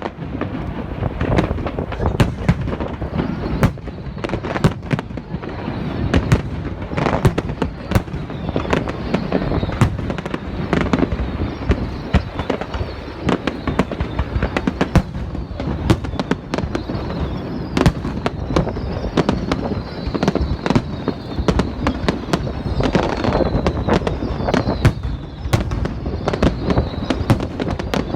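Aerial fireworks display: a dense, continuous barrage of bangs and crackles. Thin falling whistles join the bursts from a little past halfway.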